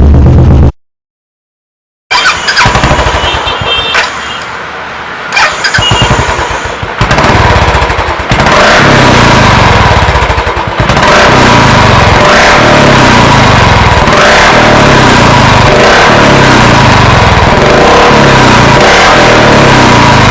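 Royal Enfield motorcycle with an aftermarket exhaust silencer starting up after about a second of silence. It runs unevenly at first, then runs loud and steady with repeated throttle surges from about eight seconds in.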